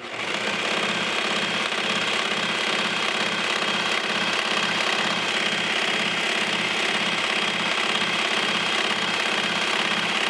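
Brother Pacesetter serger stitching a four-thread overlock seam through knit leggings fabric, starting up right at the beginning and then running steadily at an even speed with a fast regular pulse from the needle and knife.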